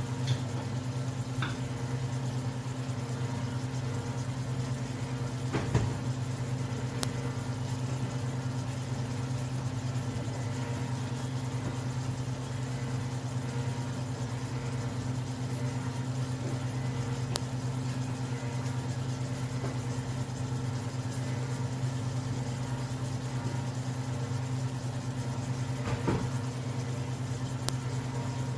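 A steady, low mechanical hum, like a small motor or fan running, with a couple of brief knocks, one about six seconds in and one near the end.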